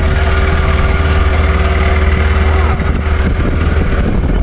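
Motorboat engine running steadily under way, a constant low drone with a steady tone above it, over a rush of wind and water.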